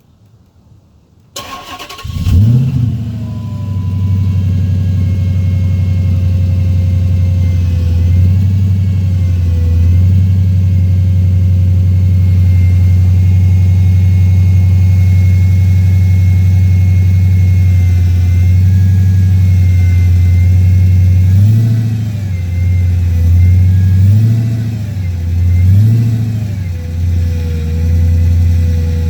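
2006 Dodge Magnum SRT8's 6.1-litre Hemi V8 starting about two seconds in, flaring briefly and settling to a steady idle, then revved three times near the end. A faint high whine runs over the engine note and rises and falls with the revs.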